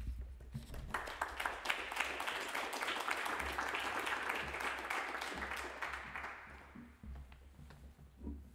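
Applause from a small seated audience, starting about a second in and dying away near the end.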